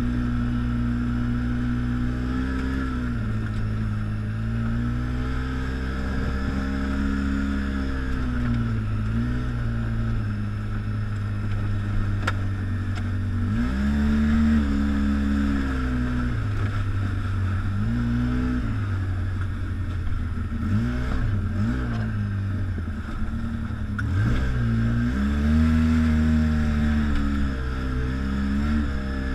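ATV engine running under changing throttle, its pitch rising and falling again and again as the rider eases on and off over rough trail. Two brief sharp clicks stand out, one near the middle and one later.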